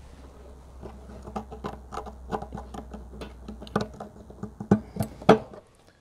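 Small clicks and scratches from handling a wiring plug on an Atwood RV water heater's control board as it is pulled off and pushed back on, with a few sharper clicks near the end.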